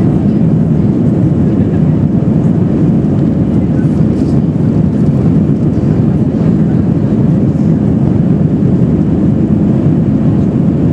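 Steady cabin noise inside an Airbus A321 climbing after takeoff: engine and airflow noise, even and unbroken.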